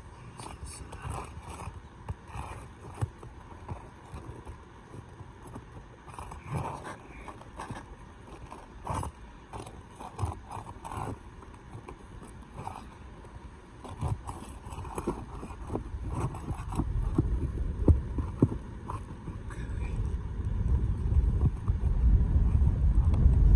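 Roof snake scraping and clicking under asphalt shingles as roofing nails are worked loose, in irregular short strokes. A low rumble builds over the last third.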